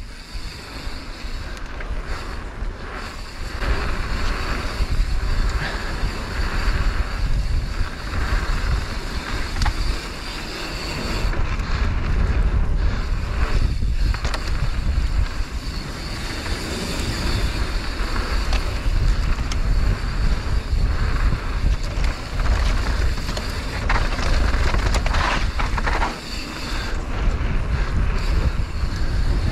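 Mountain bike riding down a dirt flow trail, heard raw: tyres rolling over the ground with scattered rattles and knocks from the bike over bumps, and wind buffeting the microphone throughout.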